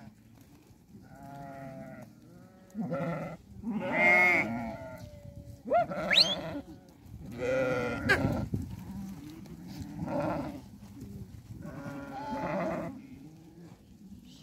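Flock of sheep bleating: separate wavering calls from different animals, one every second or two.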